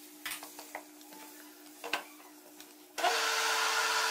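A few light knocks as the blender jar is handled and set on its base, then about three seconds in a National electric blender's motor switches on and runs at a steady pitch, beating a thick cake batter of ghee, sugar and egg.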